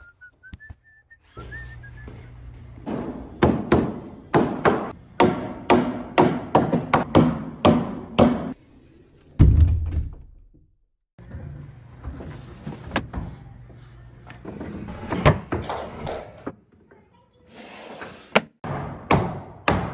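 Repeated hammer or mallet blows knocking timber together during log cabin kit assembly: sharp knocks about two a second in runs, broken by abrupt cuts, with a low steady hum under some stretches.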